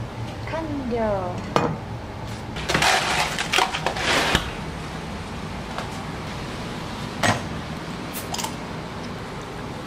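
Kitchen dishes and utensils clattering: a few sharp clinks and knocks, with a busier stretch of clatter and scraping about three to four seconds in, over a steady low hum.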